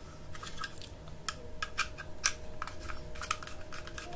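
Irregular small clicks and scrapes of a screwdriver turning the terminal screws of a plastic modular 32 A DP switch held in the hands.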